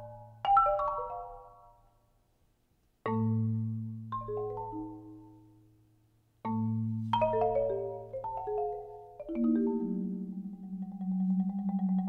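Solo marimba: three gestures, each a struck note with a quick cascade of higher notes, ringing away almost to silence in between, the second and third opening on a deep low note. From about nine seconds in, the player holds rolled notes in the low and middle range.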